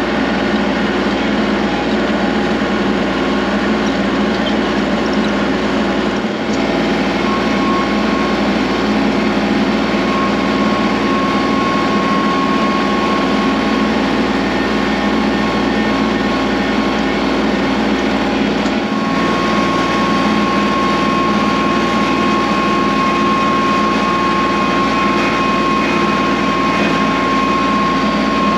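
An engine running steadily at constant speed, with a thin high whine joining in after a few seconds.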